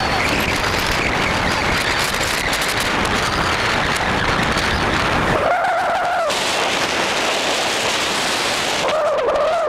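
Loud, steady road and wind noise from a car travelling at speed along a motorway. A steady held tone sounds briefly about halfway through and again near the end.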